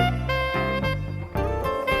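A jazz saxophone plays a calm melody line with notes that slide upward, over held guitar and keyboard chords.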